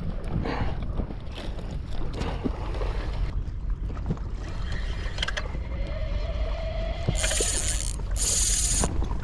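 Spinning reel being worked on a rod, with small mechanical clicks over a steady low rumble. Near the end come two short high-pitched buzzes, each under a second.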